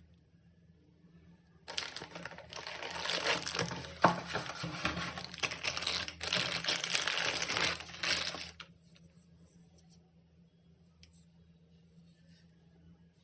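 Packaging crinkling as it is handled, a dense crinkling that starts about two seconds in and stops about nine seconds in, followed by a few faint light ticks.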